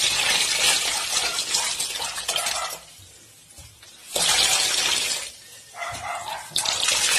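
Coconut milk being wrung by hand from grated coconut in a cotton towel, pouring and splashing into a steel basin. This is the second pressing, made with added hot and cold water. The splashing comes in spurts as the cloth is twisted and lets up for a moment about three seconds in.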